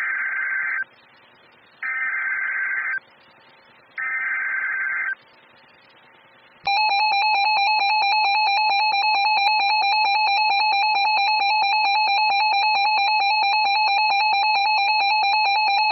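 Emergency Alert System SAME header: three screeching data bursts of about a second each, a second apart. They are followed about 6.7 s in by the steady two-tone EAS attention signal, which runs for about nine seconds. Together they signal that a severe thunderstorm warning is about to be read.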